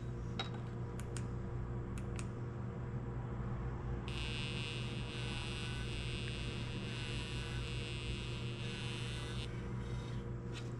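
Handheld laser (LIBS) metal analyzer firing against an aluminum extrusion to take an alloy reading: a high-pitched buzz that starts about four seconds in, holds steady for about five seconds and cuts off. A steady low hum lies under it, with a few faint clicks near the start.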